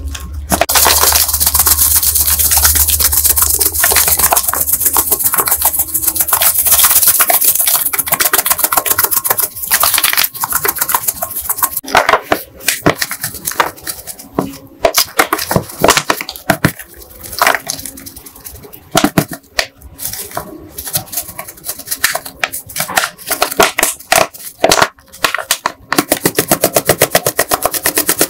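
Sandy grit pouring out of a plastic bottle into a plastic sieve basket: a long hissing pour at first, then scattered taps and rattles of grit and plastic. Near the end the bottle is shaken hard over the basket, a fast, even rattle.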